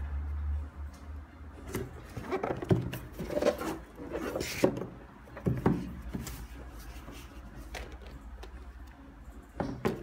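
Cardboard shoebox being handled by hand: a run of knocks, scrapes and rustles from about two to six seconds in, then one more knock near the end.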